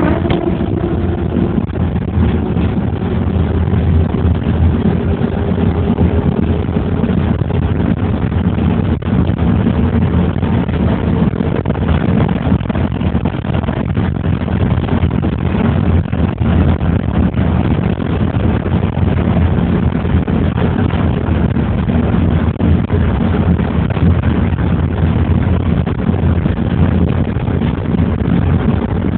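A car driving on asphalt streets, heard from inside the cabin: a steady low rumble of engine and tyres, with a faint tone rising slowly over the first ten seconds or so.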